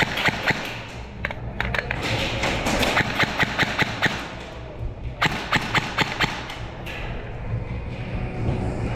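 Airsoft guns firing in quick strings of sharp clicks, several shots a second, with short pauses between the strings.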